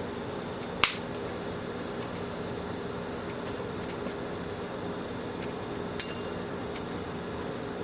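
Two sharp clicks of small hard Shark vacuum parts knocking together as they are handled and fitted, one about a second in and one near the end, over a steady hum.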